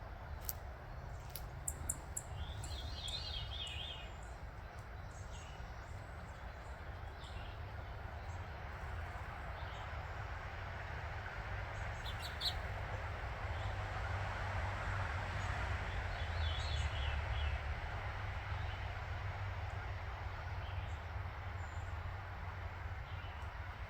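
Backyard ambience: a steady low rumble and hiss, with short bursts of bird chirping twice, a few seconds in and again past the middle, and a few light clicks.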